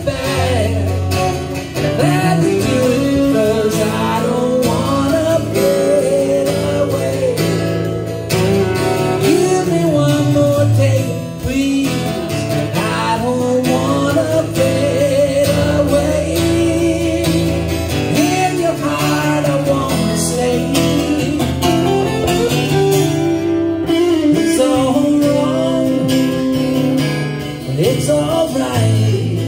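Live duo of acoustic guitar and solid-body electric guitar playing a song, with a man singing lead.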